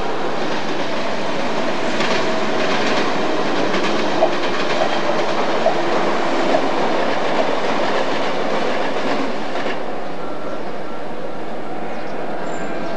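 Double-deck electric suburban train running past, its wheels clacking over rail joints in a few sharp knocks. The noise drops away about ten seconds in.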